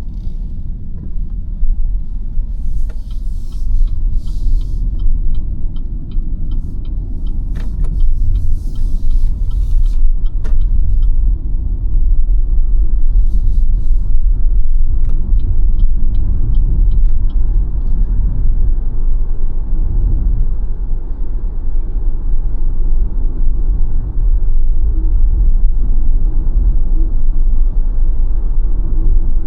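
Steady low road and tyre rumble from a BYD Sealion 7 dual-motor electric SUV on the move, with no engine note. Two runs of light, evenly spaced ticks, about two to three a second, come through it, one a few seconds in and one about halfway.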